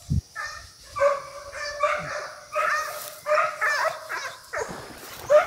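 A pack of American foxhounds baying in repeated, overlapping calls: hounds in full cry chasing game.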